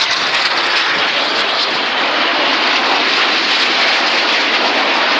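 Steady jet roar of a formation of five BAE Hawk T1 jets flying past, picked up by a cellphone microphone.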